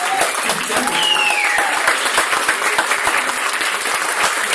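Audience clapping steadily, with a whistle falling in pitch about a second in.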